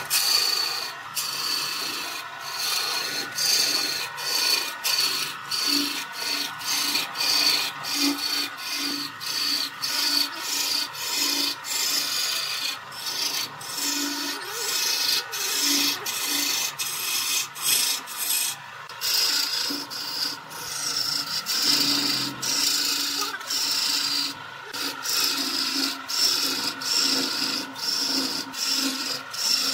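A wooden spindle spinning on a lathe with a hand-held tool pressed against it gives a steady rasping scrape. The scrape rises and falls in regular pulses.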